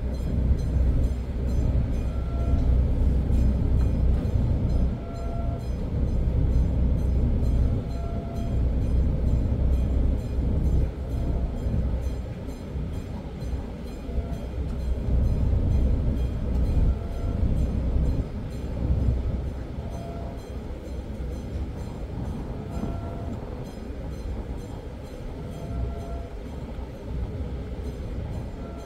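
Low, uneven rumble on board a ship, with a faint short beep repeating about every three seconds.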